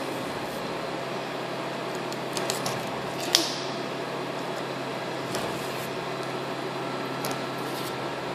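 Steady hum of room ventilation with a few small clicks and taps from hands handling a glue bottle on the stone tabletop. The sharpest click, about three seconds in, trails off in a brief hiss.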